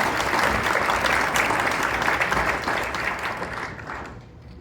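Audience applauding a performer's introduction; the clapping dies away about four seconds in.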